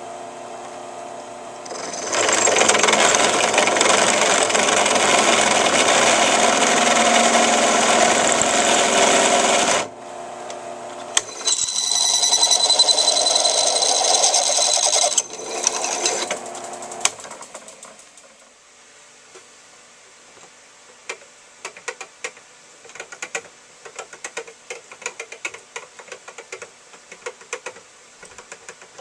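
A power tool motor runs loudly for about eight seconds, stops, then runs again for a few seconds with a steady high whine, while a part is worked on for a 1/2-20 tapped thread. After that, light irregular clicks of metal on metal.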